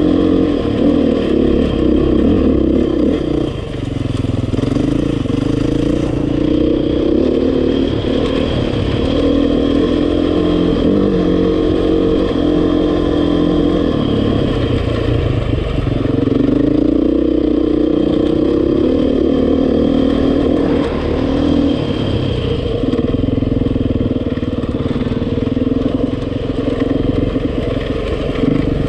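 Dirt bike engine running under way on a rocky trail, its pitch rising and falling repeatedly as the throttle opens and closes.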